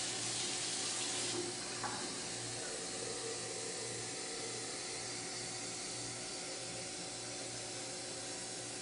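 Kitchen faucet running tap water into a glass container, a steady rush of water that softens slightly about a second and a half in.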